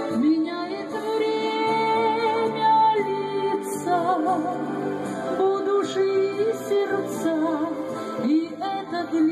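A woman singing a slow melody over instrumental accompaniment, with long held notes and vibrato.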